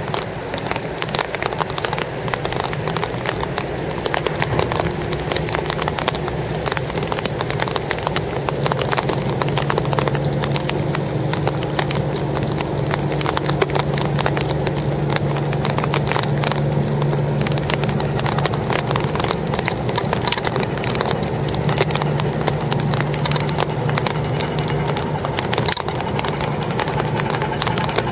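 Small boat engine running with a rapid knocking clatter; its pitch steps up slightly about eight seconds in.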